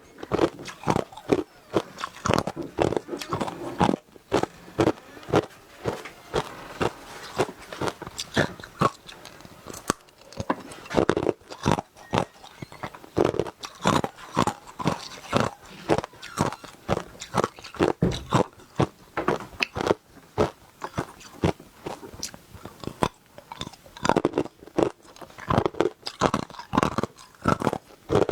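Hard ice being bitten and chewed up close: a quick, irregular run of loud, sharp crunches and cracks, several a second, as the pieces break between the teeth.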